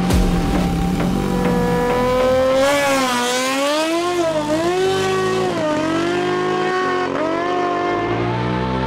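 Supercharged Kawasaki H2-engined drag motorcycle pulling away from the start line and accelerating down the strip. Its engine note rises from about two seconds in, then swings up and down several times as the throttle and gears change.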